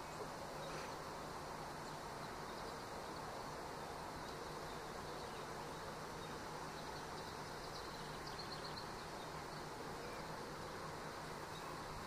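Faint steady background noise with a low steady hum and a few faint ticks.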